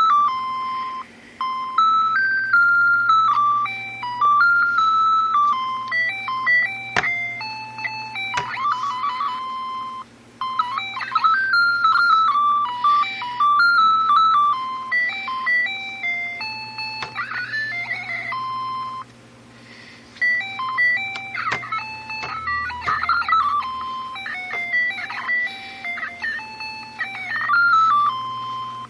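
Casio MA-10 alarm clock's electronic beeper playing a garbled melody of single beeping notes that jump erratically between pitches, with stutters and brief drop-outs; the worn-out clock is malfunctioning as if circuit-bent. A couple of sharp clicks sound about seven and eight and a half seconds in.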